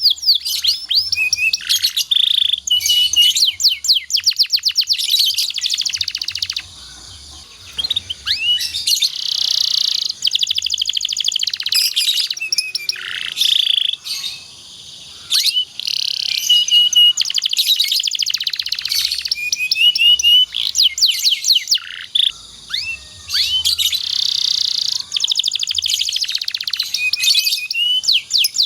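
Domestic canary singing long runs of fast trills and rolling repeated chirps, broken by two short pauses.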